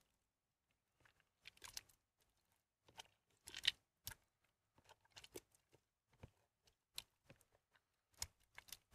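Soaked, mushy bar soap squeezed and crumbled by hand: quiet, irregular crackles and crunches, the loudest cluster about three and a half seconds in.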